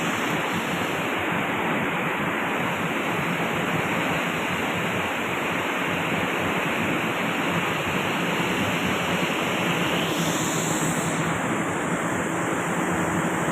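Steady rushing noise of wind and water with a motor running underneath, as heard while travelling in a motorboat.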